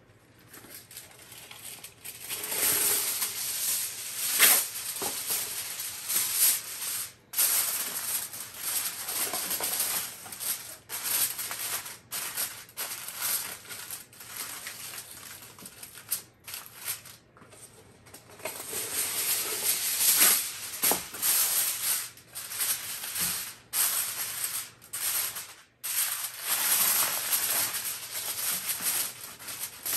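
Reynolds Wrap aluminium foil crinkling and rustling as a sheet is spread over a baking tray and pressed and crimped down around its edges. It comes in irregular crackly bursts with short pauses.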